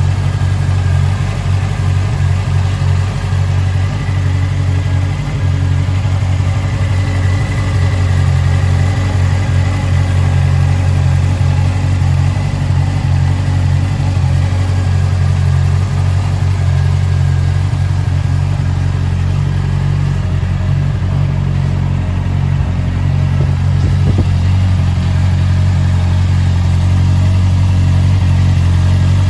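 Honda CBR650R's inline-four engine idling steadily.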